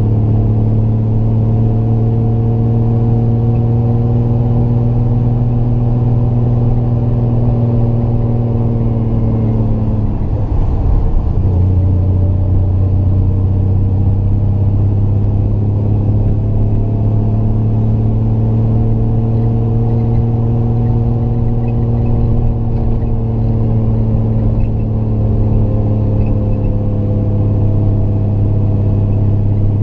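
Triumph GT6 Mk2's two-litre straight-six engine pulling steadily uphill, heard from inside the car. Its note sinks slowly, breaks up briefly about ten seconds in, then runs steadily again.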